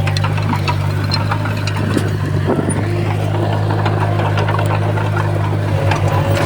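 Komatsu D20P bulldozer's diesel engine running steadily under work, with scattered sharp clicks and clanks throughout. Near the end the engine note begins to pulse.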